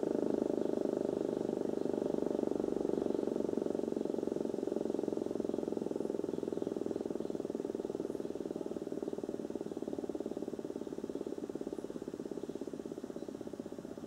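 Electric rotary motor siren running down after its fire-alarm signal, its low tone fading steadily as the rotor slows.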